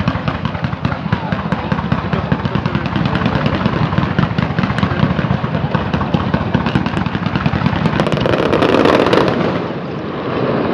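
Fireworks barrage: a dense, rapid, unbroken string of crackling bangs, swelling to its loudest about eight to nine seconds in before easing slightly.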